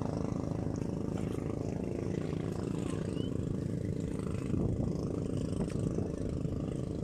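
Wind buffeting the microphone at the shore: a steady low rumble.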